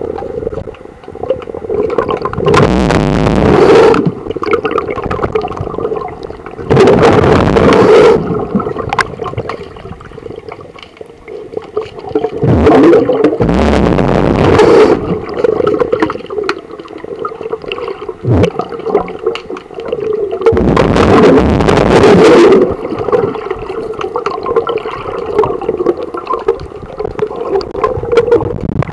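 Water heard through an underwater camera beside a boat hull: a muffled wash with a steady hum, broken four times by loud bursts of rushing, bubbling water lasting one to two seconds each.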